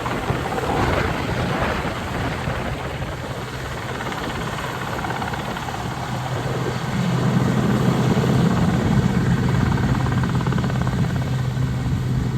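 Westland Sea King helicopter in flight: the rotor beat and the hum of its twin turboshaft engines run steadily. The sound grows louder about seven seconds in.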